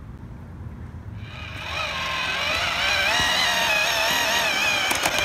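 Background music: a sustained, wavering melody comes in about a second in over a low rumble and grows louder.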